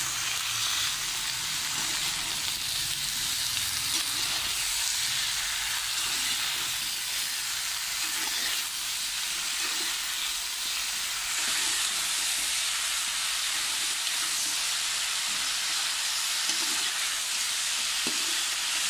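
Eggplant and potato pieces sizzling steadily as they fry in hot mustard and regular oil in a metal pot, with faint scrapes of the vegetables being stirred through the spices.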